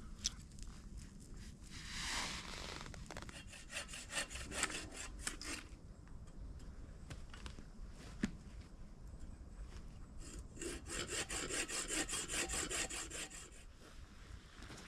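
Hand saw cutting firewood in quick, even back-and-forth strokes: a short run a few seconds in and a longer run about ten seconds in, with wood being handled between.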